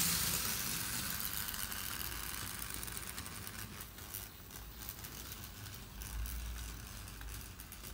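Märklin model of a DB class E63 electric locomotive with a train of wagons running on metal M-track: a steady rolling rattle with fine clicks over the track, fading at first, then growing louder and deeper about six seconds in as the locomotive comes close.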